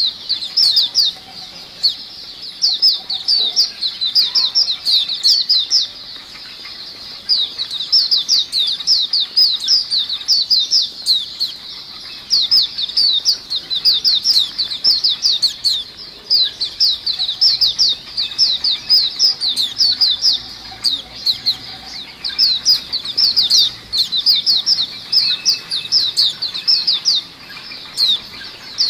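A flock of caged white-eyes (pleci) chirping together in full voice: a dense, rapid twittering of short, high, falling notes, in runs broken by brief pauses every few seconds. It is the group chirping that is played as a lure and stimulus for pleci.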